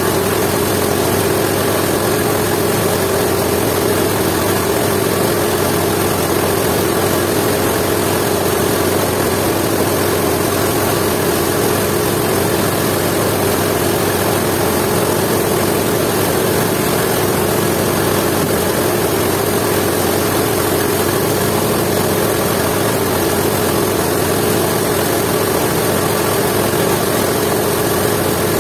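Jiangdong 8 hp single-cylinder diesel engine running steadily under load, driving a belt-driven coffee mill that is grinding dried coffee beans. The engine and mill make one even, unbroken mechanical din.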